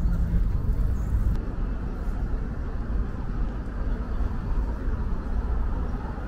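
Steady low outdoor city rumble with distant road traffic.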